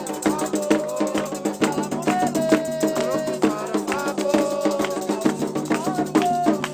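Candomblé ritual music: drums and other percussion beating a steady rhythm, with a voice singing held, sliding notes of a chant over it.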